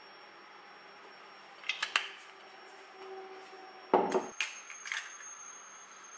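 Kitchen handling sounds: a couple of light clicks, then a louder knock about four seconds in as a glass oil bottle is set down on the counter, followed by clicks as an egg is cracked into a frying pan. A faint steady high whine sits underneath.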